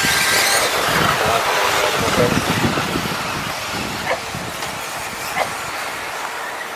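A pack of 1/10-scale 4WD electric off-road RC buggies with 13.5-turn stock brushless motors racing on a carpet track: a steady hiss of motors and tyres, loudest in the first few seconds. A couple of short sharp clacks come later.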